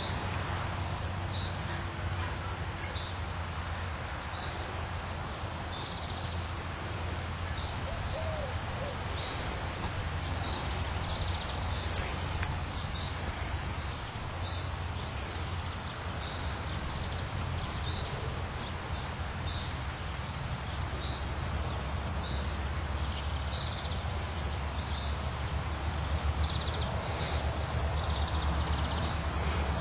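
A small bird chirping over and over, short high notes about once a second, over a steady low outdoor rumble.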